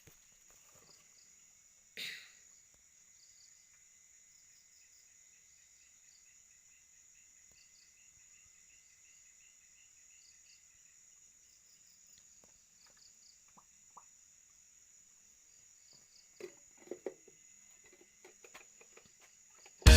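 Crickets and other insects calling: a steady high trill with rows of quick pulsed chirps over it. A brief rustle about two seconds in and a few soft knocks near the end.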